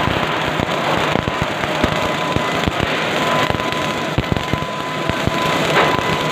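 CO2 gas-shielded MIG welding arc crackling steadily as it lays a bead, a continuous run of fine spattering clicks with a thin steady whine underneath.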